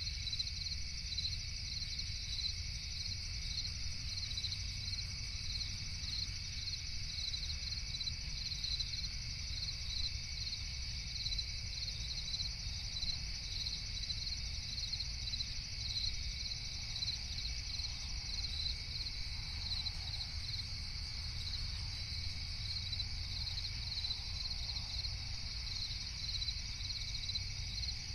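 Night-time crickets chirping in a steady, evenly pulsing chorus, over a low steady rumble.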